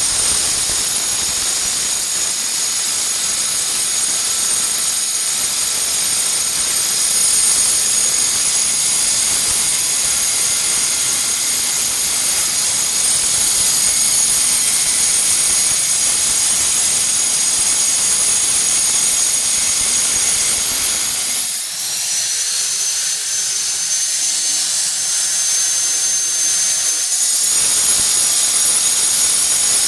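Angle grinder cutting glass: a steady high-pitched whine over a grinding hiss. About two-thirds of the way through, the whine rises in pitch and the low grinding drops away for about six seconds, then the sound returns to its earlier pitch.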